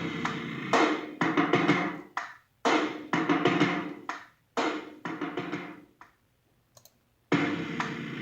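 Intro music with drums and percussion, played in short phrases with brief breaks and a pause of about a second near the end.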